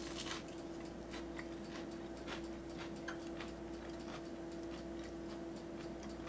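A person chewing a mouthful of deep-fried sweet potato: faint, irregular wet clicks of the mouth, over a steady hum.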